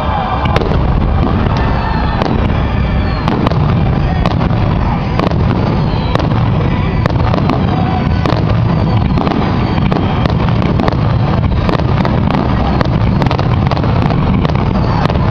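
Fireworks finale barrage: a dense, continuous rumble of overlapping aerial shell bursts, with many sharp crackles and reports scattered throughout and a few whistling glides.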